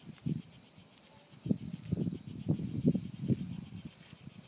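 A steady, shrill chorus of cicadas. Short, low muffled bumps on the microphone come once about half a second in and several times between about one and a half and three and a half seconds in, and they are the loudest sounds.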